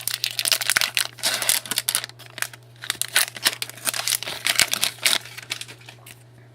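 A trading-card pack wrapper being torn open and crinkled by hand: a run of irregular crackles and rustles that thins out about five seconds in, over a steady low hum.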